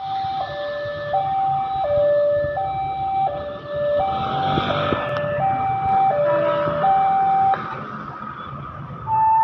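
Railway level-crossing alarm sounding a two-note high-low warning, switching note about every 0.7 seconds over road traffic noise, then cutting off about seven and a half seconds in. The alarm warns of an approaching train.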